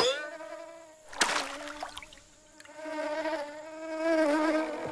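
A flying insect's wings buzzing in a steady, pitched hum. A quick pass at the start drops in pitch, and another brief pass comes about a second in. The hum fades around two seconds in, then comes back and holds steady.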